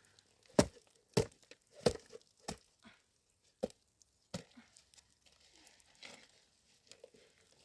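Chopping: about six sharp knocks roughly half a second apart, loudest near the start, stopping after about four and a half seconds and followed by softer rustling.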